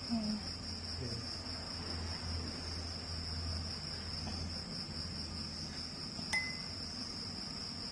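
Steady high-pitched insect trilling, with a low hum in the first half and one sharp click about six seconds in.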